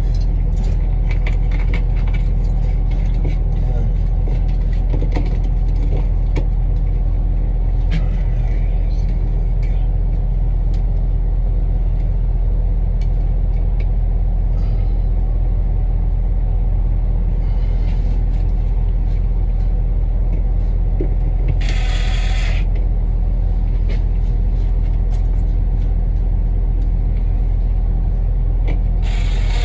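A steady, loud, low engine-like drone runs throughout, with scattered light clicks and knocks from handling parts. Two short bursts of hiss come about two-thirds of the way through and again at the very end.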